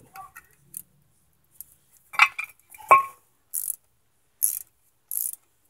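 Two metal clinks, the second ringing briefly, then a hand ratchet wrench clicking in short strokes about every three quarters of a second as a brake caliper bracket bolt is turned.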